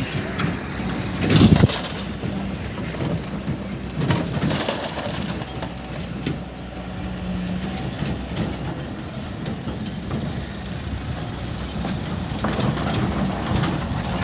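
Excavator engine running steadily, with a loud sudden burst of noise about a second and a half in and a smaller one around four seconds.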